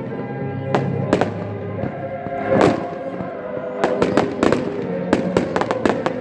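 Fireworks going off over music: sharp bangs and crackles, a few at first, then a quick run of bangs from about four seconds in, with music playing steadily underneath.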